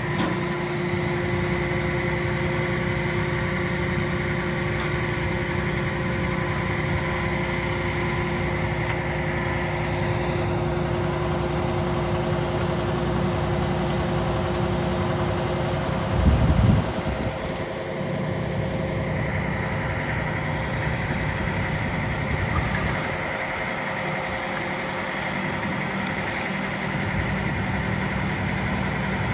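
Heavy truck's diesel engine running steadily under a steady mechanical drone. A steady tone in it stops just past halfway, and at that point a brief low thump is the loudest moment.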